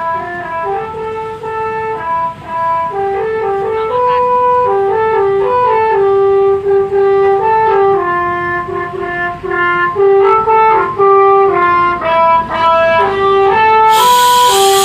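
Telolet bus horn, a bank of air horns playing a quick melody of held notes, several sounding together and changing pitch note by note. Near the end a loud rushing noise joins in under the tune.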